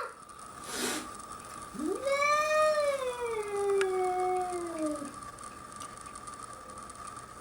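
A cat's long, drawn-out yowl of about three seconds that rises quickly and then slides slowly down in pitch, after a brief breathy burst about a second in. A faint steady high tone runs underneath.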